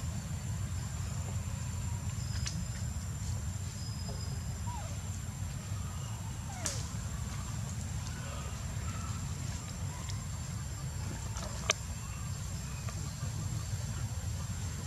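Outdoor ambience: a steady low rumble under a thin, high, steady tone, with a sharp click about seven seconds in and another near twelve seconds.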